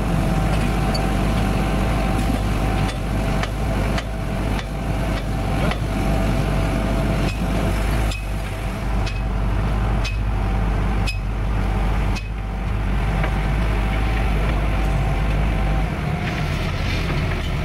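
A heavy machine's engine running steadily, with irregular knocks now and then.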